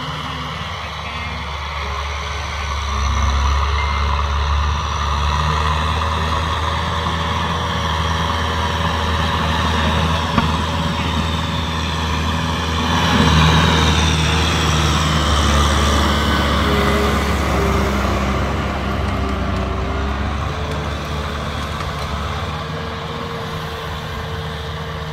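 Kubota M6040 tractor's diesel engine running steadily under load while pulling a rotary tiller through dry soil. It grows louder about halfway through as the tractor passes closest, then slowly fades as it moves away.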